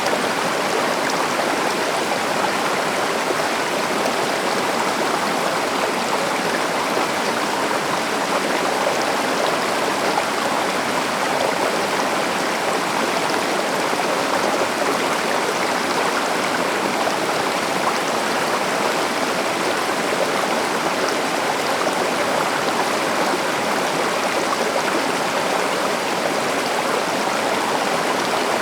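A river flowing: a steady, unbroken rush of moving water.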